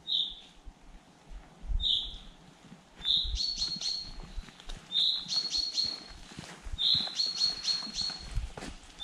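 A songbird singing in the forest: two short high notes, then three song phrases about two seconds apart, each opening with a note and running on into a quick series of high notes.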